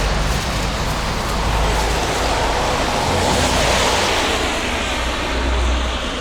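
Road traffic noise: a passing car's rush swells in the middle and fades near the end, over low wind rumble on the microphone.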